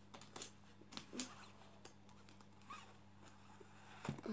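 Faint, scattered taps and rustles of a paperback book being handled and shifted in the hands.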